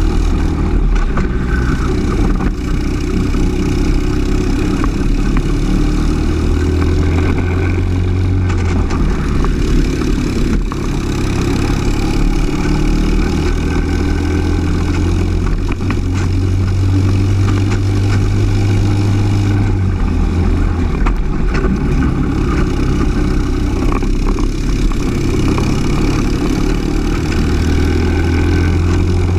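Briggs & Stratton LO206 single-cylinder four-stroke kart engine running at racing speed, heard onboard; its note holds strong on the straights and drops back several times as the driver lifts for corners, with the engine of a kart close ahead mixed in.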